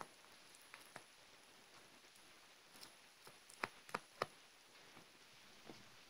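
Tweezers picking and pulling at a mock acne pad of green filler under plastic film, making sparse faint clicks and small ticks. Three sharper clicks come in quick succession a little past halfway.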